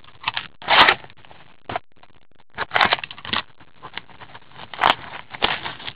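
Opening a box of 2014-15 Upper Deck MVP hockey card packs: cardboard and pack wrappers scrape and crinkle in short, irregular bursts, with a few sharp clicks.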